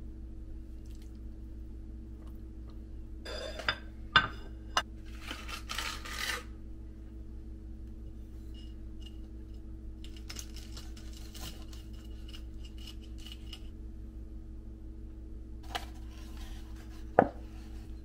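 Dishes and food containers being handled: scattered sharp clinks and knocks with some rustling, the loudest knock near the end, over a steady low hum.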